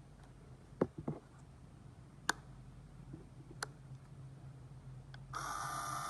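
Several separate sharp clicks and taps, then about five seconds in a small electric motor switches on and runs with a steady whine. This is the battery-powered coffee grinder's motor running after its battery has been replaced.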